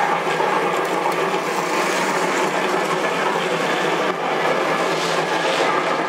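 Model trains running on a model railway layout: a steady mechanical running noise with no breaks.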